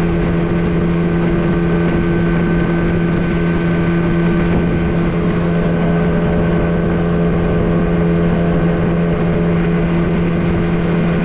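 Motorboat engine running under way at a steady, unchanging speed: a constant pitched hum.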